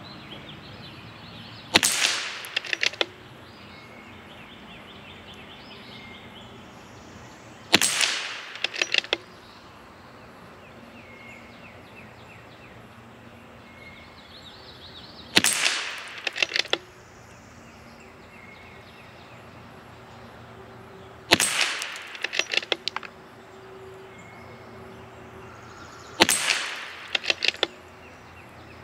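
Five shots from a CZ 457 Varmint MTR .22LR bolt-action rifle with a Lilja match barrel, spaced about five to six seconds apart. Each is a sharp crack followed within about a second by a quick run of sharp clicks.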